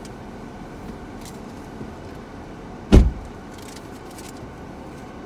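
Steady low rumble heard from inside a car's cabin in an automated car wash, with one loud, short thump about three seconds in.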